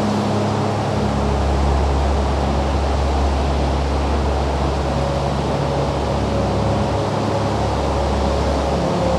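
Lake Erie waves and wind at the shore: a steady rushing noise with no breaks, faint held low tones underneath.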